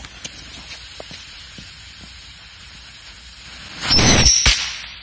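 Korsar 4 Widowmaker firecracker burning: the fuse hisses steadily with a few faint crackles, then about four seconds in it flares with a loud hissing whistle for about half a second, ending in a sharp crack.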